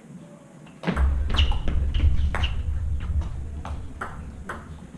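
Table tennis ball clicking off rackets and table in a quick, irregular rally, some hits with a short ping. A low rumble sets in with a thud about a second in and fades away, and the clicks thin out near the end.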